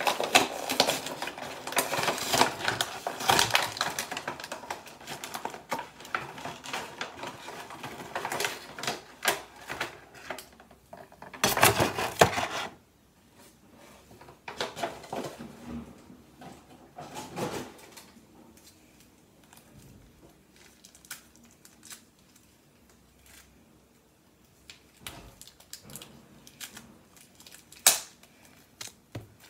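Bakugan toy packaging being handled and opened by hand: a dense run of small clicks and rustles, a louder rustling burst about twelve seconds in, then quieter, scattered clicks and rustles.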